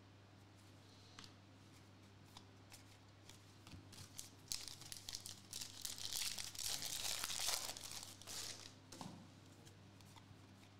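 Foil wrapper of a trading-card pack being torn open by hand. A few scattered crackles build into several seconds of tearing and crinkling, then die down to light clicks.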